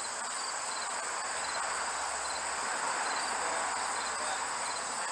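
Crickets and other insects chirping steadily in a continuous shrill trill, over a rushing hiss that grows louder in the middle.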